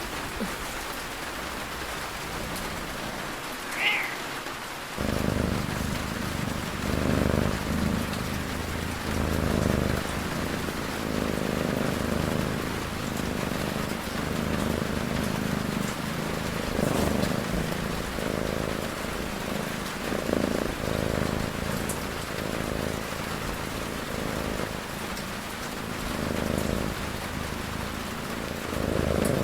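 Steady rain with a cat snoring in slow, even breaths, about one every two seconds, starting about five seconds in. A brief high chirp sounds just before the snoring begins.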